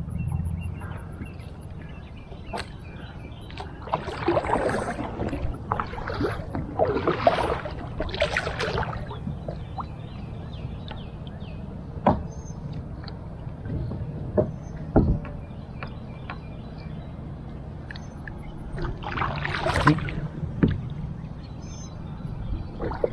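Water swishing and splashing around a plastic sit-on-top kayak as it is paddled, in several swells about a second long. A few sharp knocks come from the paddle or gear striking the hull.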